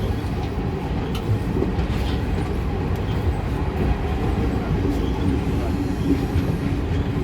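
Tata–Yesvantpur Express train departing a station: a steady low rumble of the moving train with a few faint wheel clicks.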